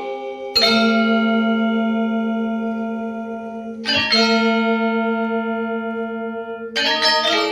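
Music of bell-like struck chords: three strikes, each ringing out slowly before the next.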